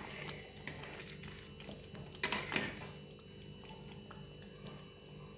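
Thick paneer masala gravy simmering and bubbling in a steel kadai. About two seconds in, a spatula scrapes and knocks against the pan as it is stirred.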